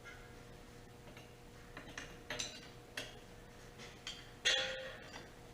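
Scattered metal clicks and clinks of wrenches on the injector line nuts of a Kubota D722 diesel as they are tightened a little at a time. The loudest clink comes about four and a half seconds in.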